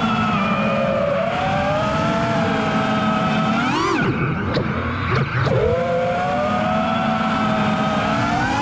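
FPV freestyle quadcopter's brushless motors and propellers whining. The pitch holds fairly steady while cruising, then drops sharply and climbs back twice, about four and five and a half seconds in, as the throttle is chopped and punched.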